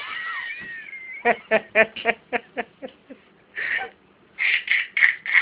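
A young girl imitating a parrot with high, squeaky vocal noises: a wavering squeal, then a quick run of about eight short chirps, then a few short squawks near the end.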